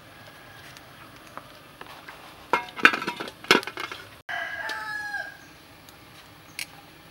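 A rooster crowing: one call about four seconds in that drops in pitch at its end. Just before it comes a quick cluster of sharp clatters and knocks, the loudest sounds.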